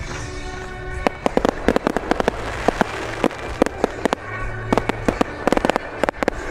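Fireworks bursting overhead: a rapid string of sharp bangs and crackles starting about a second in, with a short lull past the middle, over music.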